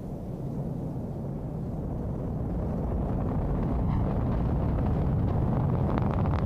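Ariane 5 rocket's Vulcain main engine and two solid boosters rumbling deep and low during the climb after liftoff, growing steadily louder.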